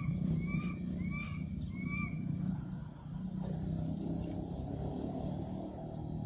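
Outdoor ambience under a steady low hum, like a running engine. Over it a bird gives four short, evenly spaced whistled notes in the first two seconds, and a faint high insect-like hiss follows.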